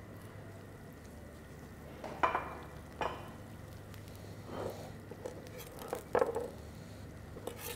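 A few light knocks and clinks from a serving plate and food being handled on a counter, spaced out over several seconds, some ringing briefly.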